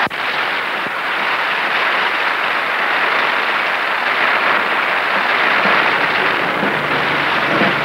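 A large crowd applauding: a dense, even clatter of many hands clapping.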